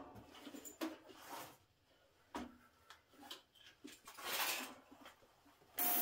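Light handling noises: scattered clicks and knocks and a short rustle as parts are handled at a steel CNC table. Shortly before the end a steady hiss with a faint hum starts abruptly.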